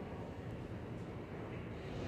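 Steady low rumble of an R160 subway train approaching through the tunnel, echoing in the underground station.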